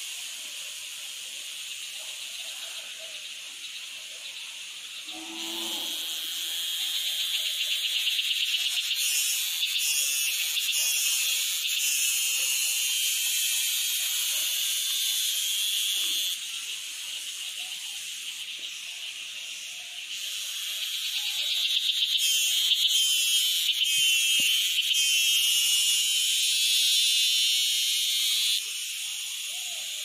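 Forest ambience: a dense, steady high-pitched chorus of wild creatures, with a short lower call about six seconds in. The chorus grows louder twice and drops back abruptly each time.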